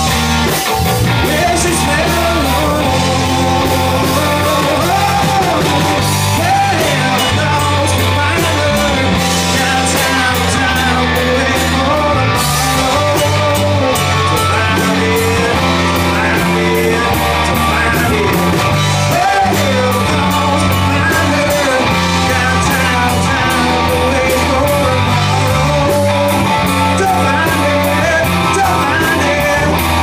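Live rock band playing loud: electric guitars and a drum kit, with a man singing into a microphone over a steady low line.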